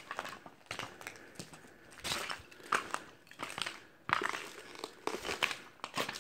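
Footsteps crunching over debris-strewn floor, roughly at walking pace, each step crackling and crinkling over scattered litter and broken ceiling tiles.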